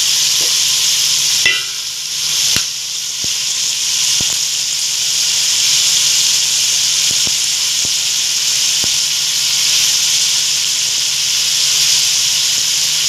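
Sliced chicken and onions frying in a large metal wok with a steady sizzle. The sizzle drops briefly about two seconds in, and a few faint clicks come through it.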